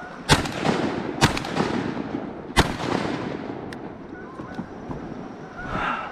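Three shotgun shots, each with a short echo trailing off, the second about a second after the first and the third about a second and a half later.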